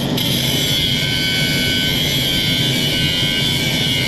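Power cutting tool running steadily with a high multi-tone whine as it cuts through the forge-welded Damascus steel billet to split it in half.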